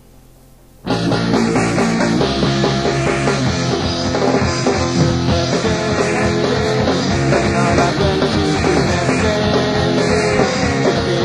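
Faint tape hum and hiss, then about a second in a punk rock band comes in loud with its instrumental intro: electric guitar, bass guitar and drums, with no singing yet.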